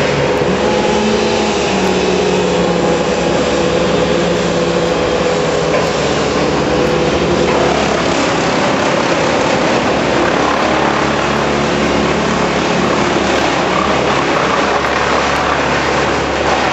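Engines of tree-removal machinery running steadily, several pitched hums that shift slightly in pitch over a constant noisy rumble.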